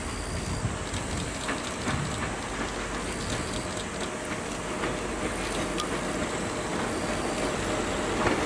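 EF66 electric locomotive hauling a train slowly into a station: a steady rushing noise that grows louder as it nears, with scattered light clicks.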